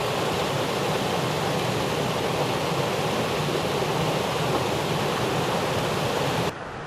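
Water of a small stream waterfall rushing and splashing steadily over rock ledges. Near the end it cuts off abruptly to a quieter background hiss.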